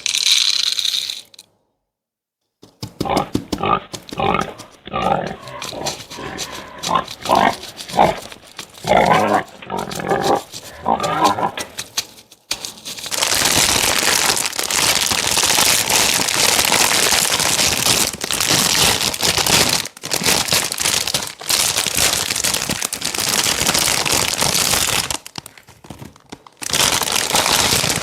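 A string of short animal grunts, pig-like, followed by a long stretch of crinkling noise that breaks off briefly and then returns near the end.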